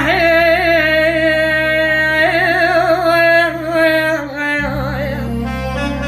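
Sung Arabic lament: a singer holds one long note on "yaa" with heavy vibrato and ornaments, over steady low accompaniment. Near the end the line falls in steps.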